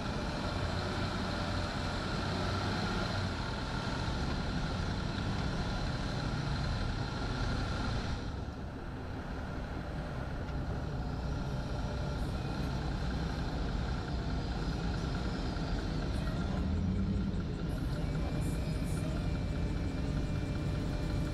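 A Jeep's engine running at low trail speed as it crawls over slickrock, a steady low rumble with road and body noise. The higher noise thins briefly about eight seconds in.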